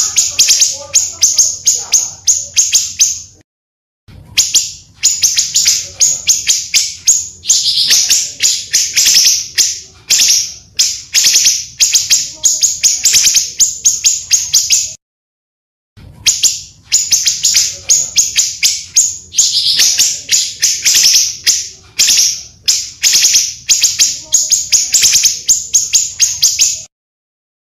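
Recorded song of a pancawarna bird played as a lure and tutor track: fast trains of high, sharp chirps, about ten a second, in phrases. The same stretch of song repeats as a loop about every twelve seconds, with a brief full silence between repeats and a faint low hum underneath.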